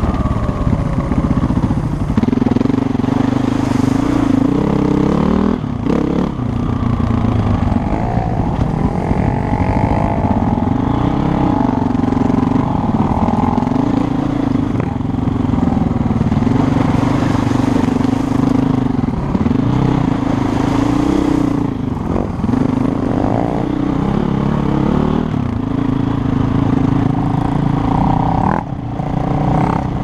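KTM 450 EXC single-cylinder four-stroke enduro engine running under way close to the microphone, its pitch rising and falling with the throttle. The engine note drops out briefly about six, twenty-two and twenty-eight seconds in.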